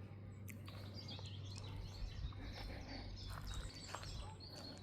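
Birds chirping in many short calls over a steady low hum.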